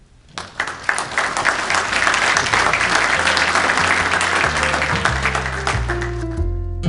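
Audience applauding, swelling within the first second and dying away near the end. Plucked-string music fades in underneath during the second half.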